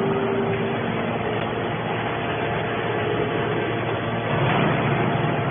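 Horizontal hydraulic scrap-metal baler running: steady, loud machinery noise with a hum, and a steady tone that fades out about a second in.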